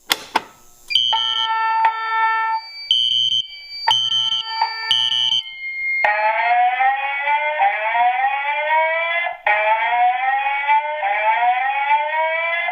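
A fire alarm is pulled with a sharp click, and the building's fire alarm system sounds. First come a few seconds of steady electronic tones switching on and off. Then, about six seconds in, a repeating rising whoop starts, about one every second and a half.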